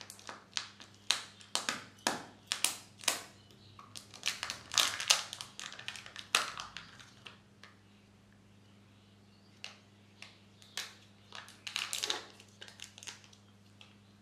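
Foil wrapper of a Kinder Joy egg crinkling and crackling as it is peeled off by hand, a quick run of sharp crackles for about the first seven seconds. After a short pause, the plastic seal on the egg's chocolate half crackles as it is pulled off.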